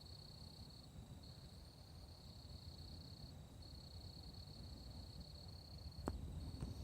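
Faint, steady high-pitched insect chorus, crickets or katydids, dropping out briefly a few times, with one sharp click about six seconds in.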